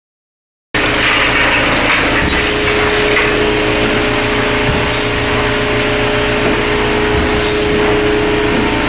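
Rotary bottle unscrambler of an e-liquid filling line running, its turntable and feed elevator moving empty plastic bottles. The machine sound is a loud, steady noise with a constant mid-pitched tone. It starts abruptly a moment in.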